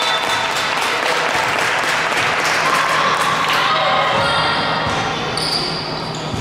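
Basketballs bouncing on an indoor court floor during a game, a run of repeated thuds over the general noise of the hall.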